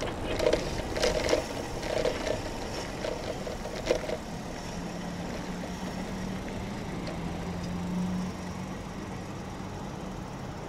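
Steady road and wind noise from riding a bicycle along a city street, with a few clicks and rattles in the first four seconds and a low steady hum from about four to eight seconds in.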